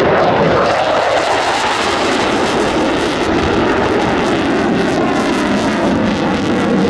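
USAF F-15C Eagle fighter's twin Pratt & Whitney turbofans on a low flyby: a loud, steady jet roar, with a pitch that falls during the first second as the jet passes.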